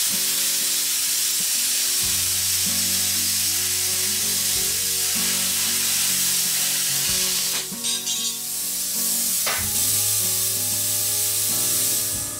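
Plasma cutter cutting 3 mm steel plate, its arc and air jet running with a loud steady hiss, fed at 4 bar (about 60 psi) from an external compressor. The hiss dips briefly a little past the middle and stops at the very end.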